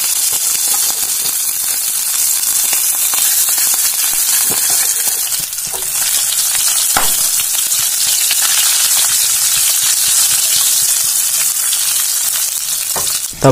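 Whole scored boiled eggs sizzling in hot oil in a frying pan, a steady loud hiss with a few sharp clicks scattered through it.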